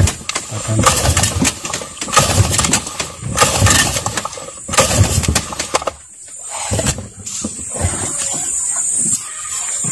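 Yamaha 40 hp outboard motor being pull-started: about five pulls on the recoil starter roughly a second apart, then a steadier noise through the last three seconds.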